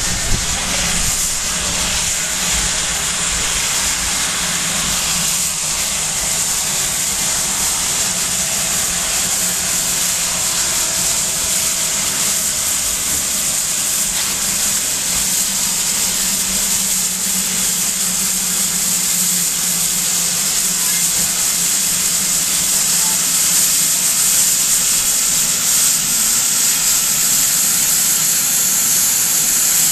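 GWR 2-8-0 tank locomotive 5224 blowing off steam: a loud, steady hiss that continues without a break. Its safety valves are lifting, the sign of a boiler at full pressure.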